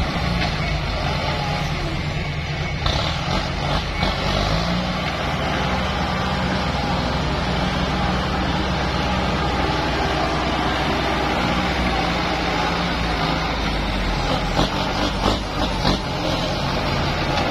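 Kubota M8540 tractor's diesel engine running under working load while it pushes and levels soil, its pitch rising and falling a little. A few sharp knocks come near the end.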